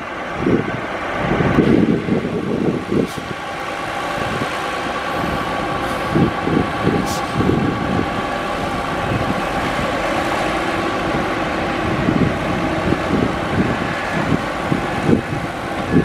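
Heavy diesel earthmoving machinery, a dump truck or bulldozer, running steadily, with a thin steady whine over the engine noise.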